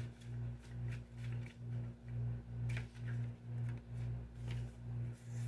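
Low ambient background drone that swells and fades evenly about twice a second over a steady higher hum, with a few faint light clicks.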